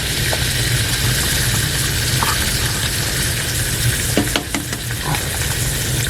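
Eggs frying in butter in a pan, a steady sizzle over a low hum, with a few light clicks of a utensil about four seconds in.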